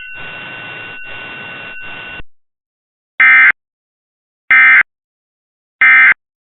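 Radio static hiss with two faint steady tones, cutting off about two seconds in. Then three short, loud bursts of Emergency Alert System digital data tones about 1.3 seconds apart: the end-of-message code that closes the test.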